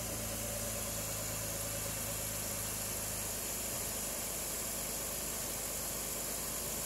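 A 2004 Jeep Liberty's V6 engine idling steadily under an open hood, over a steady high hiss.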